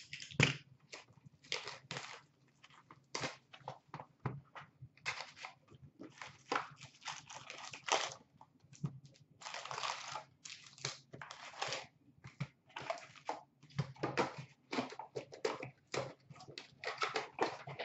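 Trading-card box and foil card packs being torn open and handled, with wrappers crinkling in many short, irregular bursts.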